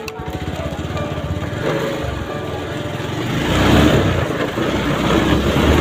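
Motorcycle engine running with an even idle beat, growing louder and heavier from about three seconds in.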